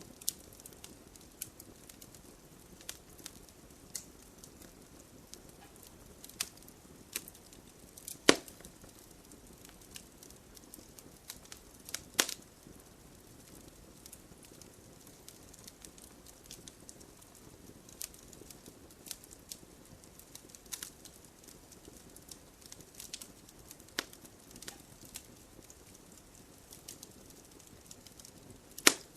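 Wood fire burning, a low steady hiss of flames with scattered sharp crackles and pops from the burning logs. The loudest pops come at about 8 seconds, 12 seconds and near the end.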